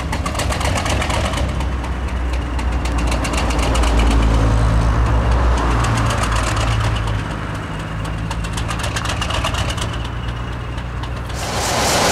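English Electric 12CSVT V12 diesel engine of a Class 37 locomotive running after a very cold start, a steady low idle with even firing strokes. The note runs louder and a little higher for a few seconds in the middle, then settles back. Near the end it turns much louder and brighter, heard close up inside the engine room.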